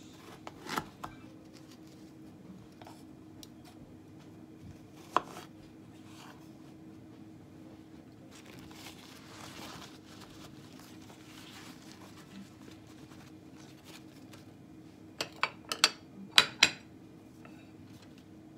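Kitchen handling sounds: a few sharp knocks of a knife and pear pieces on a wooden cutting board near the start, a soft rustle of a paper towel rubbed over grapes in the middle, and a quick run of sharp clicks from a ceramic plate being handled and set down on the counter near the end, over a faint steady hum.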